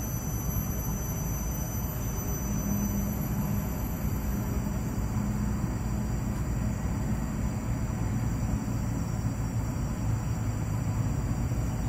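Steady low outdoor rumble with faint steady high-pitched tones above it; no distinct event stands out.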